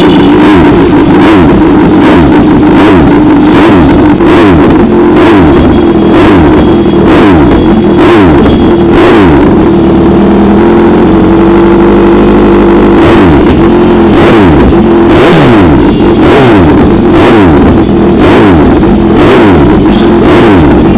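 Kawasaki Z900's inline-four revved hard again and again through an aftermarket Austin Racing carbon slip-on exhaust, the pitch climbing and dropping with each blip of the throttle. Sharp pops and bangs come on the overrun as the exhaust spits flames.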